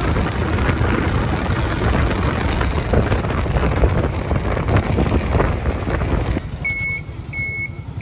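Wind buffeting the microphone over the rumble of a moving vehicle. About six and a half seconds in it cuts off sharply, and an electronic beeper sounds on and off about once every two-thirds of a second.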